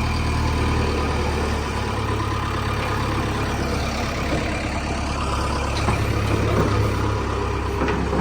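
Diesel engine of a JCB backhoe loader running steadily. Its pitch drops a little about a second in and rises again a little past halfway.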